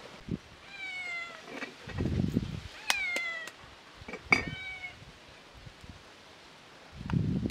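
A cat meowing three times, each call short and falling slightly in pitch. Between the calls come a few sharp clicks and a brief low rumble.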